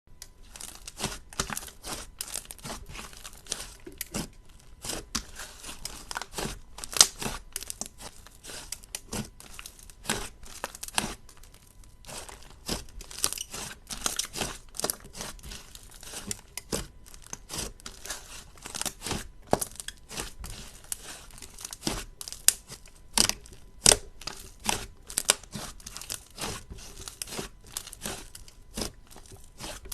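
Slime being squeezed and pressed by hand, giving dense, irregular crackles and sharp pops, with a few louder snaps.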